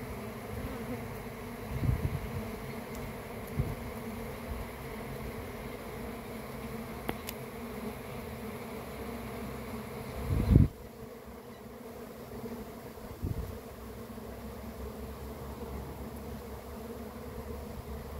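Honeybees buzzing steadily, a dense cluster crawling over comb on an open hive frame. A few short low thumps break in, the loudest about ten and a half seconds in.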